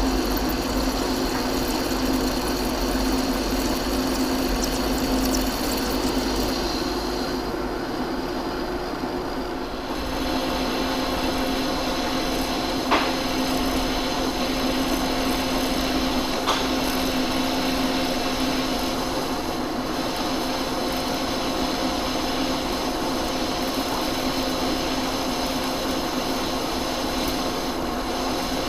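Large metal-turning lathe running steadily as it cuts a steel shaft, a constant machine hum that shifts in tone about a third of the way in, with two short sharp ticks near the middle.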